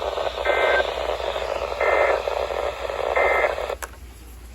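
Emergency Alert System end-of-message data bursts: three short, buzzy two-tone bursts about 1.3 s apart, heard through a radio over steady static hiss. The hiss drops away after a click near the end.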